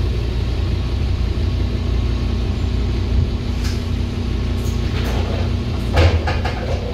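Scania single-deck bus's diesel engine running steadily, heard from inside the passenger saloon. A steady hum joins about one and a half seconds in. Several light rattles follow from about four seconds in, with a louder knock about six seconds in.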